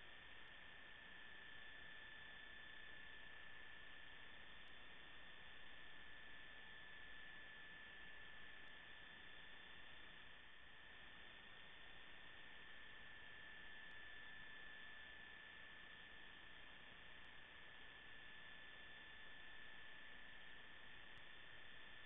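Near silence: a faint steady hiss with a thin, unchanging high tone running under it, and no game sounds.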